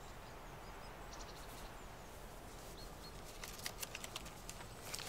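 Quiet outdoor ambience with a low steady hum and an occasional faint bird chirp. From about a second in come small clicks and rustles, thickest in the last two seconds.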